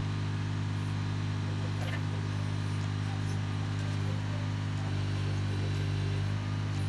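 Mini excavator's diesel engine running at a steady speed, a constant low hum.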